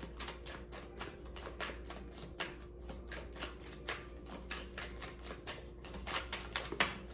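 A tarot deck being shuffled by hand: a steady run of light card slaps and riffles, about five or six a second.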